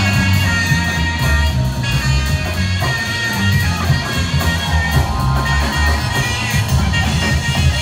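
Live jazz band playing: a tenor saxophone solos in long sustained lines over upright bass and drums.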